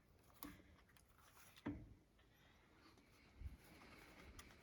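Near silence broken by a few faint, short metallic knocks and clicks, the loudest about a second and a half in, as a camshaft is eased through the cam bearings of a Mopar 318 small-block.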